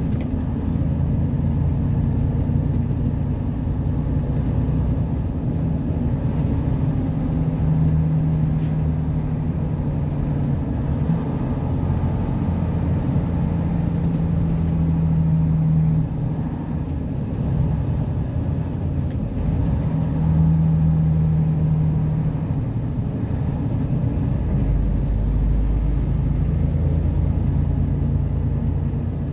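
A vehicle's engine and tyres droning steadily, heard from inside the cab while driving. A low hum in the engine note swells and fades several times.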